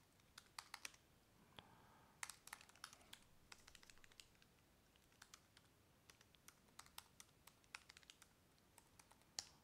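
Faint typing on a computer keyboard: quiet key clicks in short, irregular runs, with one louder keystroke near the end.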